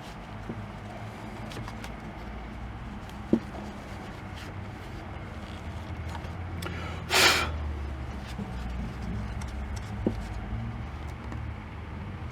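Handling noises from a welding helmet's lens holder as a plastic inner cover lens is worked out: a sharp click, a short loud scrape about halfway through, then another click, over a steady low hum.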